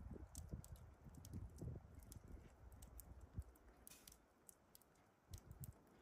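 Near silence, with faint scattered clicks and a few soft low thumps.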